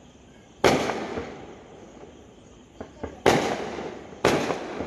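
Fireworks exploding: a loud bang about a second in, a small pop near three seconds, then two more loud bangs a second apart, each bang trailing off in a fading rumble.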